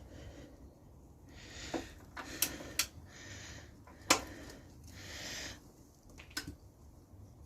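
A few sharp clicks and knocks of tools handled on the motorcycle's rear axle, with breathy hisses of heavy breathing between them.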